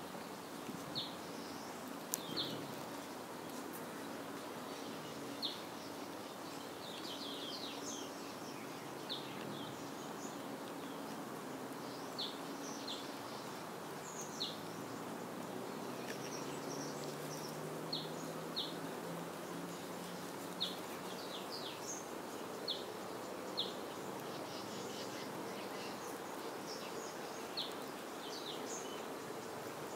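Flies buzzing with a low, slowly drifting hum, while a bird gives short high chirps every second or two.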